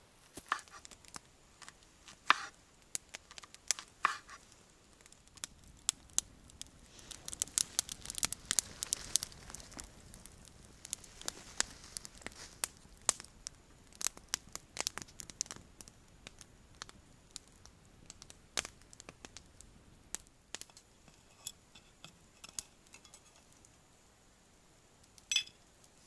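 Stones knocking together as they are set into a fire ring, then a dense run of crackling and tearing about seven to ten seconds in, with scattered sharp clicks after and one louder snap near the end.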